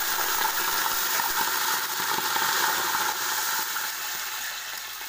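Water poured in a steady stream into a metal pot of hot oil and whole spices, splashing and rushing, tapering off near the end as the pour slows. This is the cooking water going in for the biryani rice.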